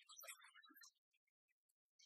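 Near silence, with only faint, scattered high-pitched ticks in the first second.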